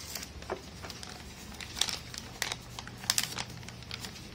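Paper sheets rustling and crinkling as hands fold and crease them, in irregular sharp crackles, the loudest about two and three seconds in.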